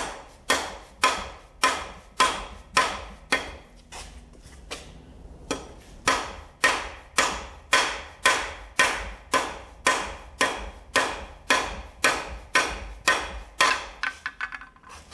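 Hammer blows on a cam bearing removal tool, driving a cam bearing out of a Ford FE 390 V8 block: sharp metal strikes at about two a second, with a short pause a few seconds in.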